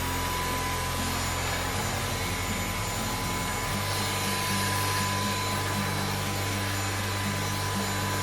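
VOSFEEL Z11 cordless stick vacuum's motor running at speed: a steady high whine over a rushing airflow hiss.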